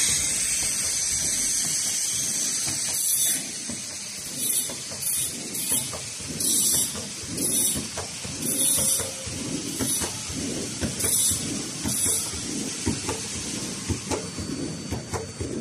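A 3.5 m CNC knife pleating machine running as it pleats filter paper. There is a pulsing mechanical rumble throughout. A steady hiss over the first three seconds gives way to short, sharp hiss bursts about once a second.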